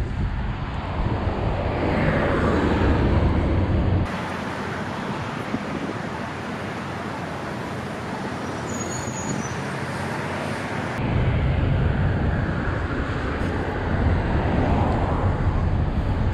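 Road traffic passing through a busy intersection, a steady noise of car and truck engines and tyres with a heavy low rumble. The low rumble drops away abruptly about four seconds in and comes back about eleven seconds in.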